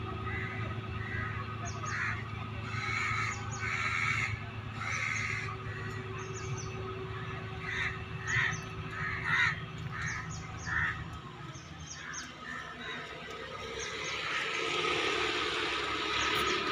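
Crows cawing repeatedly, with thin high chirps of small birds, over a steady low engine hum from the river ferry that fades out partway through. A rushing noise swells near the end.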